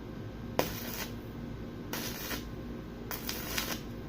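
Welding arc crackling in short bursts of about half a second each, several in a row, the first starting with a sharp click.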